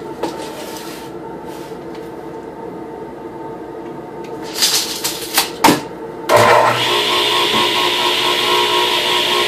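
A few knocks and clatters of a plywood sheet being handled, then a woodshop power tool's electric motor switches on about six seconds in and runs at a loud, steady pitch, ready to cut the sheet.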